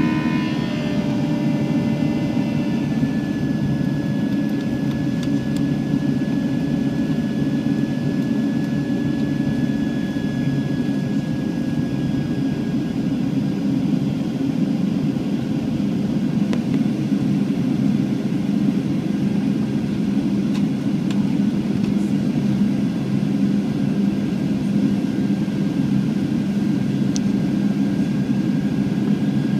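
Boeing 737-700 jet engines running steadily, heard as a loud, even rumble from inside the cabin. A faint whine drifts slowly lower early on.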